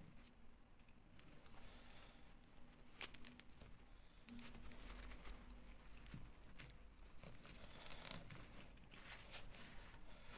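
Faint rustling of a glittery tulle doll dress being pulled off a plastic fashion doll, with light clicks and taps from the doll's plastic body being handled. One sharper click about three seconds in and a small cluster of ticks near the end.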